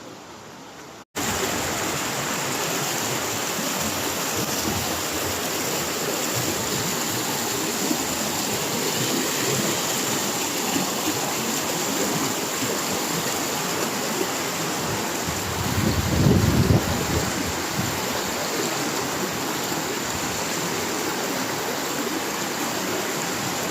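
Fast river current rushing steadily, starting abruptly about a second in. A louder low rumble swells for about a second around two-thirds of the way through.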